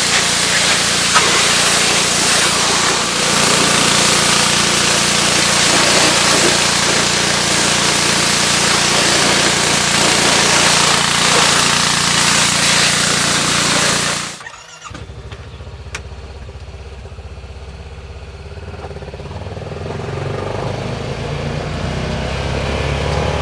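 Simpson 3400 gas pressure washer running, its high-pressure water spray hissing loudly over the steady engine note. The spray stops abruptly about 14 seconds in, leaving a quieter, lower rumble that grows louder toward the end.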